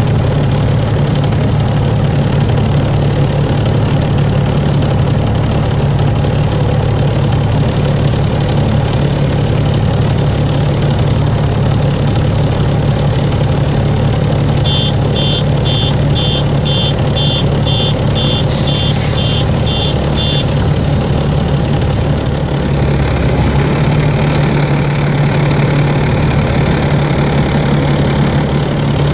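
Volvo 7700A articulated bus's engine running with a steady low drone and a steady high-pitched tone over it, one of the strange noises these buses sometimes make. About halfway through, an electronic beep repeats about twice a second for some six seconds, and the engine note shifts a little after it.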